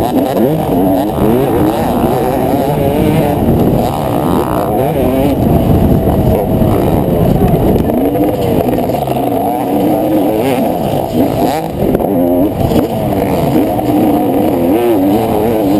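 Motocross dirt bike engine heard close up from the bike itself, its pitch rising and falling continually as the rider accelerates, shifts and backs off around the track.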